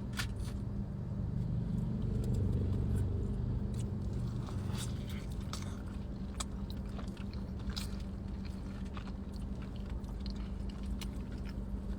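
A person biting into and chewing fast food close to the microphone, with scattered wet clicks of mouth sounds. A steady low hum runs underneath.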